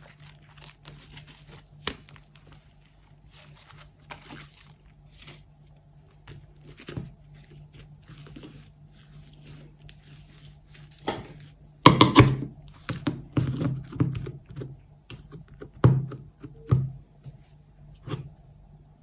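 Slime being kneaded and squished by hand: a run of faint sticky crackles and clicks, then a cluster of louder wet slaps and thunks about two-thirds of the way through, over a low steady hum.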